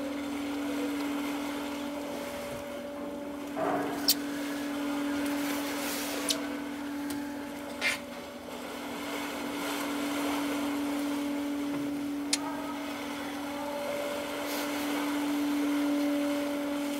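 Steady machinery drone of the ship MS Fram under way: one held humming tone over a hiss, with a few sharp clicks scattered through it, four of them between about four and twelve seconds in.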